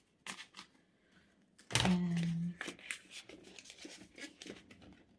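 Paper and plastic rustling and light clicks as laminated cards and zip-pocket pages of a cash-stuffing ring binder are handled and turned. About two seconds in there is a sharp snap, then a short, steady low hum lasting under a second.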